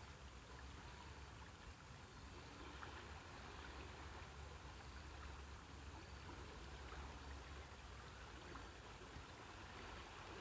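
Faint, steady rush of a river in flood, running high and fast, with a low steady rumble underneath.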